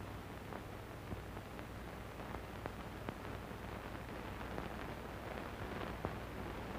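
Steady hiss of an old optical film soundtrack with a low hum and scattered faint crackles; no other sound stands out.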